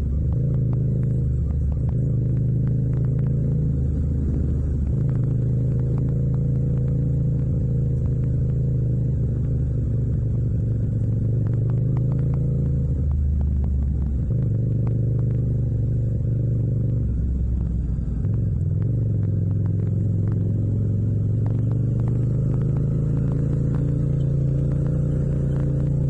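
Yamaha MT-07's parallel-twin engine running at low, fairly steady revs in second gear at about 35 km/h, its pitch drifting slightly up and down with small throttle changes.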